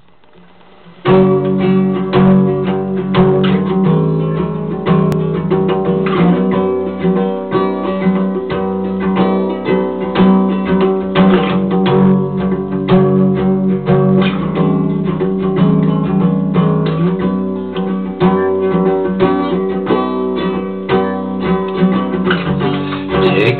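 Acoustic guitar music, plucked and strummed, starting about a second in.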